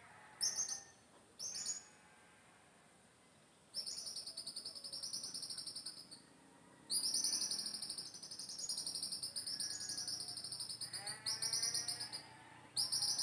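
Birds calling in high, fast-pulsing trills: two short bursts, then two long trills lasting several seconds each. A lower, drawn-out animal call joins near the end.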